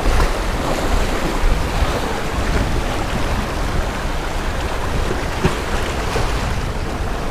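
Small waves washing over rocks at the water's edge: a steady rushing noise with a low rumble.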